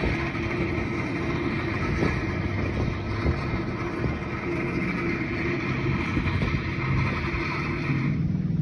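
Railway track maintenance machine working on the rails: a steady mechanical din with a high hiss over a low engine hum. About eight seconds in the hiss cuts out and the lower engine hum grows stronger.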